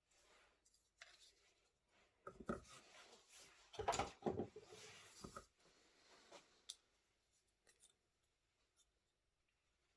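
Close handling noises: rubbing and scraping with a few light clicks, loudest about four seconds in.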